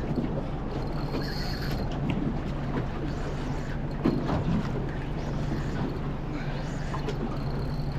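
Small boat's motor running steadily in gear at low speed, a constant low hum, with wind and water noise around it.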